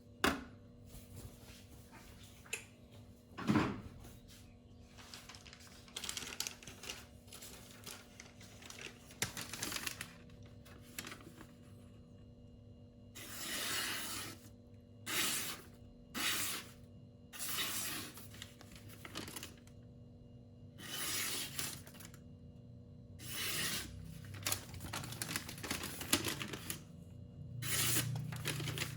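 Knife blade drawn in separate hissing strokes, about a dozen of them, unevenly spaced with short pauses between, over a faint steady hum.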